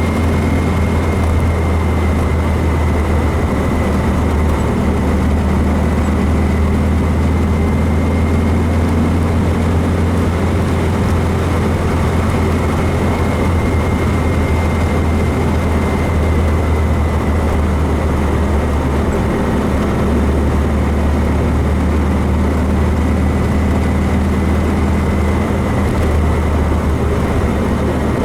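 Volkswagen 1776 cc air-cooled flat-four engine running steadily while driving, heard from inside the car: a constant low drone with a faint steady high whine over it.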